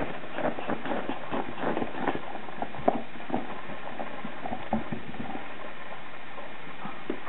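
Yorkshire terrier scrabbling and tugging at a cloth on carpet: irregular rustles and light thumps over a steady hiss, thinning out after about five seconds.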